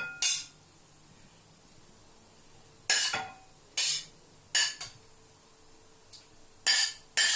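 Spatula knocking and scraping against a pan and plates while stir fry is served out: about six short, sharp clatters spread over the seconds.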